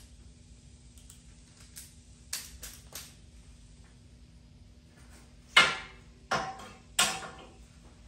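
Steel ratchet-strap buckles clanking as the straps are handled: a few light clinks, then three louder metallic clanks near the end, each ringing briefly.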